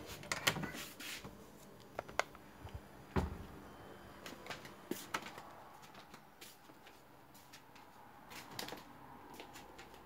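Scattered light clicks and knocks, handling noise from a handheld meter and phone being carried and moved about, over quiet room tone.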